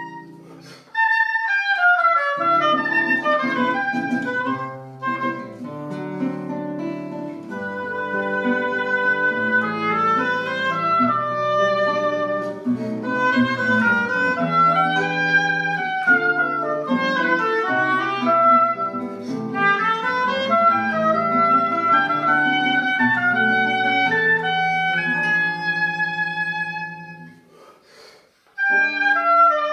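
Duet of a woodwind and a classical guitar playing a Colombian pasillo: the woodwind carries the melody over plucked guitar chords and bass notes. The music pauses briefly at the start and again shortly before the end, then comes back in.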